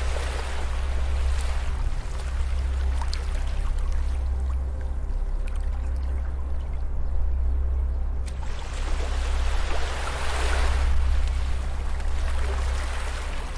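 Gentle ocean waves washing onto a beach: one wave fading out at the start and another rising and washing in about two-thirds of the way through. Soft background music holds steady low notes underneath.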